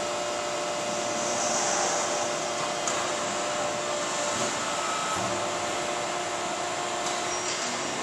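Schwabe die-cutting press running with a steady whirring hum carrying a few steady tones. A short hiss comes in about one and a half seconds in, and there are a few faint ticks.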